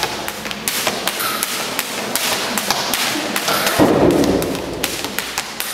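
Feet of a leaping dancer striking a tiled floor: irregular sharp taps and slaps, with a heavy landing thud about four seconds in.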